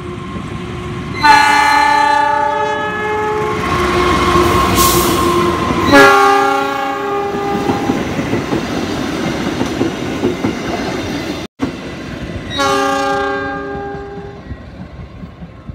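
A KAI locomotive's multi-tone horn sounds three times, each blast about two seconds long, over the steady rumble and wheel clatter of a train of passenger carriages passing through the station at speed without stopping.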